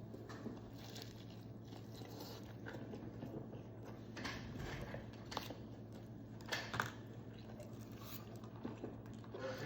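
Close-up eating sounds: chewing and biting, with scattered sharp crunches and clicks that are loudest a little past the middle, over a steady low hum.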